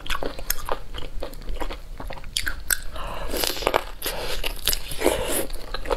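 Biting into and chewing pieces of spicy sauced meat, with many short, irregular crunches.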